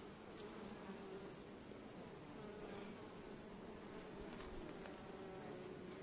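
Honey bees buzzing over an open hive and a comb frame: a faint, steady, wavering hum.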